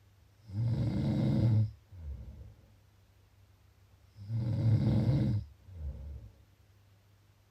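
Snoring: two loud snores, each about a second long and nearly four seconds apart, each followed by a shorter, softer breath.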